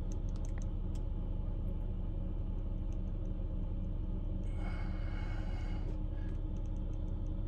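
Volvo XC90's 3.2-litre inline-six idling steadily, heard from inside the cabin. There is a brief hiss with a faint whine about four and a half seconds in, lasting about a second and a half.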